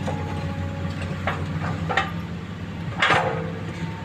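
Hydraulic excavator's diesel engine running steadily, with a few sharp metallic clanks and knocks of the bucket and rock. The loudest clank, about three seconds in, rings briefly.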